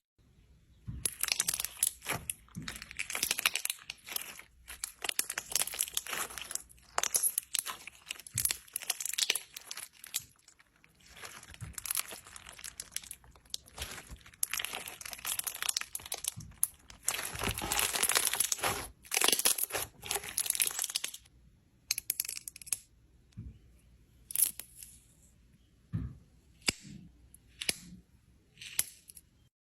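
Slime squeezed and pulled by hand, making dense, irregular runs of crackles and clicks that thin out to single pops in the last third.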